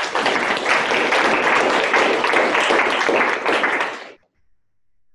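Audience clapping: dense applause that stops fairly abruptly about four seconds in.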